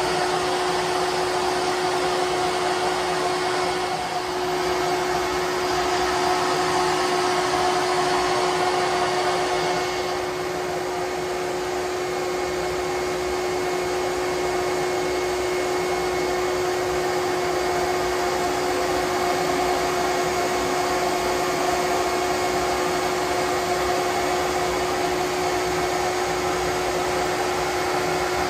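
A vacuum motor runs steadily, an even rush of air with a constant hum. This is typical of a bee vacuum used to suck bees off the comb during a hive removal.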